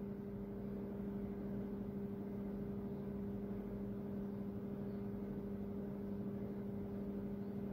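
A steady low hum of two even tones over faint background noise, unchanging throughout.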